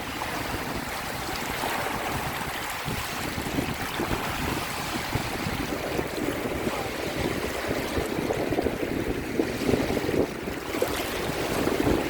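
Small waves lapping at a lakeshore, with wind buffeting the microphone in uneven low rumbles.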